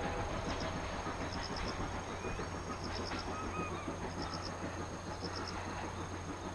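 C57 steam locomotive and its train rolling away, the low rumble fading slowly. Clusters of two to four short high ticks repeat about once a second over it.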